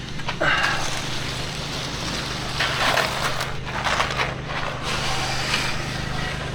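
An engine running steadily at a constant pitch, with several short rough scraping noises over it, about half a second, three and four to five seconds in.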